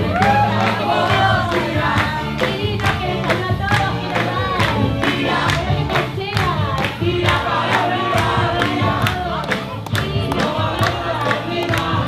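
Live rock band playing a song with singing over a steady beat, and the audience clapping along.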